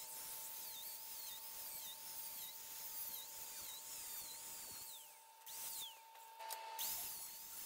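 DeWalt angle grinder with a cutting wheel cutting through expanded steel mesh, its high whine dipping in pitch and recovering over and over as it cuts. A little after five seconds in the whine falls away as the grinder winds down.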